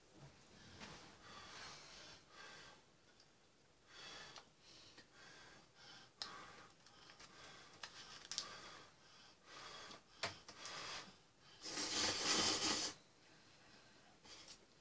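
Someone eating ramen noodles with rice cakes: soft slurping, chewing and breathing, with a few sharp clicks. The loudest sound is a long slurp of noodles near the end.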